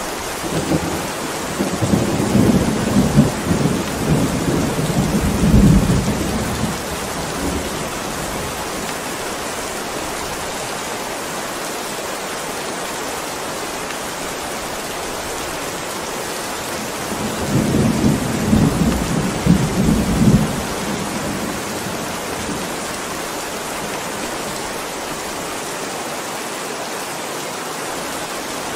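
Heavy rain falling as a steady hiss, with thunder rumbling twice: a long roll in the first several seconds and a shorter one a little past the middle.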